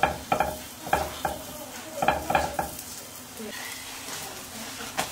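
Cabbage-filled pastries (cai hezi) frying and sizzling in a metal pan, with bursts of knocking and scraping in the first half as they are pressed flat against the pan by hand and with a metal spatula. The sizzle runs on more steadily after that, with one sharp click near the end.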